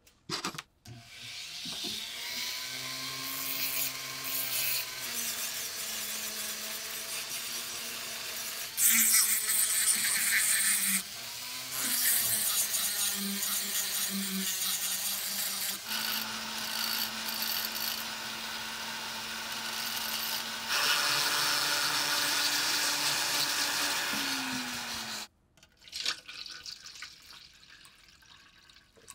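Small rotary tool with a sanding drum running and grinding rust off a corroded lock plate. The motor pitch shifts as the drum bears on the metal, and the grinding is louder in two stretches. The tool winds down with a falling whine, followed by faint sounds of liquid being poured into a plastic tub.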